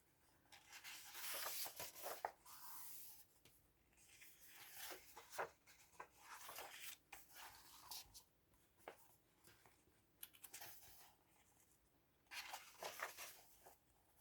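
Thin paper pages of a glue-bound colouring book being turned and handled, faint rustling and soft paper clicks in several bouts.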